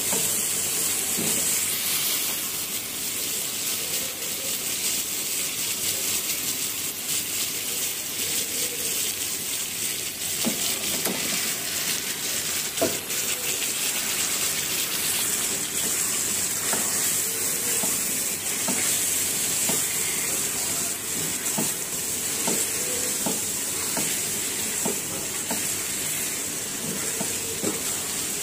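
Raw chicken pieces sizzling as they fry in cooked-down spice paste in a metal karahi, the first stage of browning the meat in the masala. A spatula stirs and scrapes against the pan, with repeated scraping clicks from about a third of the way in.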